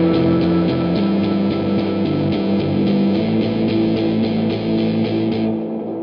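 Instrumental rock music with guitar over a steady beat; the treble drops away near the end as the track fades.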